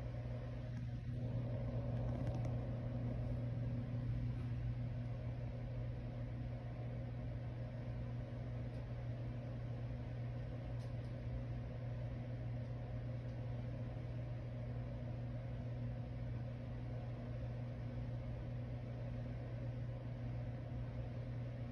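Steady electric fan running: an even low motor hum with a soft wash of air.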